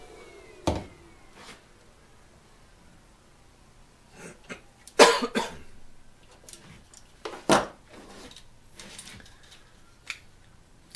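Battery charger's spring-loaded alligator clamps being unclipped from a car battery's terminals and their cables handled: a scattering of sharp clicks and clatters, loudest about five seconds in and again about seven and a half seconds in.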